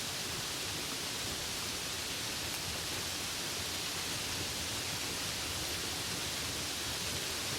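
Steady, even hiss of rain falling, with no distinct drops or thunder standing out.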